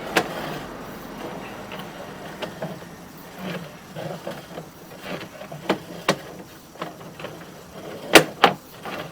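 Sewer inspection camera and its push cable knocking and scraping along the inside of old clay sewer pipe: irregular clicks and knocks over a low rumble, with two sharp knocks close together near the end.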